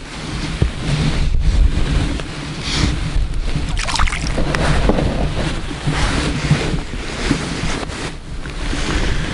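Wind buffeting the microphone with a steady low rumble, mixed with scattered rustles and knocks of clothing and gloved hands being handled close by.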